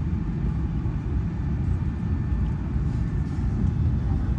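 Steady low rumble inside the cabin of an Airbus A380-861 with its engines running, heard from a rear window seat.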